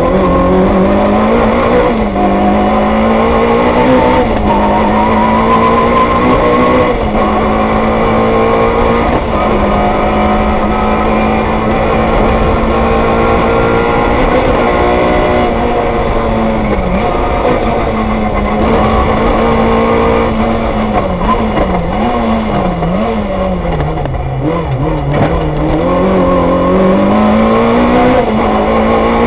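Peugeot 106 rally car's engine at full stage pace, heard from inside the cabin: revs held high and steady for long stretches, then dropping and climbing back several times past the middle as the car lifts and shifts for the bends.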